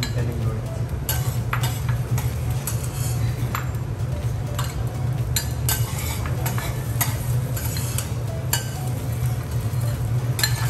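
Metal teppanyaki spatulas scraping and clicking against a steel griddle as fried rice is stirred and turned, with a light sizzle and a steady low hum underneath.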